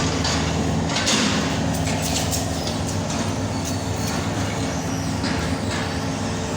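An engine running steadily, a constant low drone with faint clicks and rattles over it.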